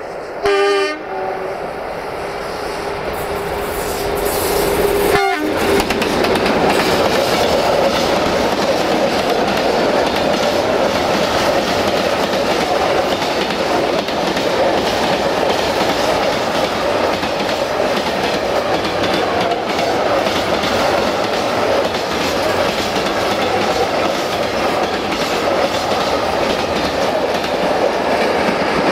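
Electroputere 060-DA (LDE2100) diesel-electric locomotive sounds a short, loud horn blast just after the start. The locomotive then passes close, and a long train of tank wagons rolls by with steady wheel noise and clicking over the rail joints.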